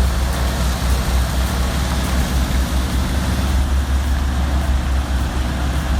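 Heavy diesel engine running steadily with a deep, even low rumble.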